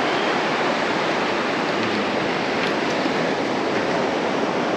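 Steady rush of sea surf washing onto the beach, a continuous even noise with no separate events.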